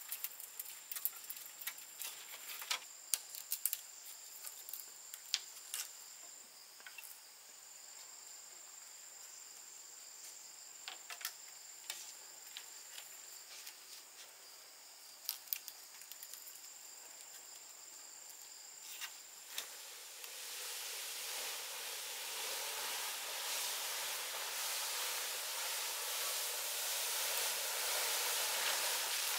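Scattered light taps and clicks over a steady high insect trill. About twenty seconds in, a steady sizzling hiss with crackle starts suddenly and slowly grows louder, typical of food frying in hot oil.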